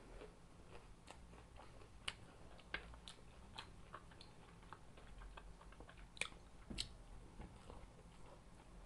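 A person chewing food: faint, scattered mouth clicks and smacks, with a few sharper ones about two, three and six to seven seconds in.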